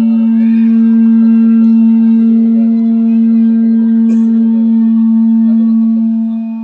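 One loud, held musical note, steady with a stack of overtones, that starts to fade near the end.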